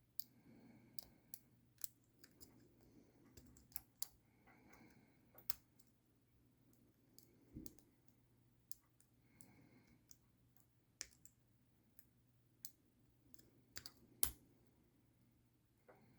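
Faint, irregular small clicks and ticks of a hook pick and tension wrench working the pins of a Brinks ProMax 662 four-pin padlock, with the pins stiff and not wanting to move.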